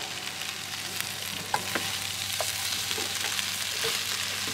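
Fresh spinach sizzling in a frying pan on a gas camping stove as it is stirred with a wooden spoon, with several short knocks of the spoon against the pan. A low steady hum runs underneath.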